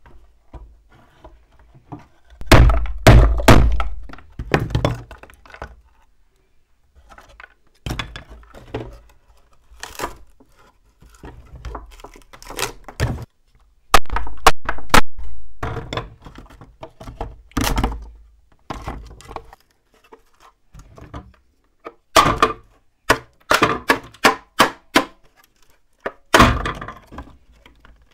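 Heavy thunks, cracking and crunching as a crumbling particleboard speaker box is broken apart by hand and with a hammer. The blows come in irregular bursts, the heaviest a few seconds in and again about halfway through.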